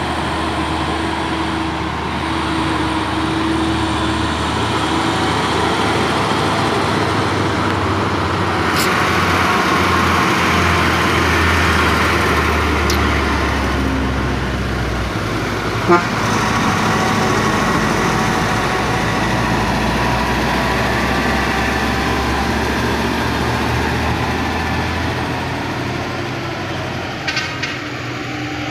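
Heavy diesel truck engines climbing a steep grade as the trucks pass, a deep steady rumble that swells through the middle, with a vehicle horn tooting. A single sharp knock about halfway through.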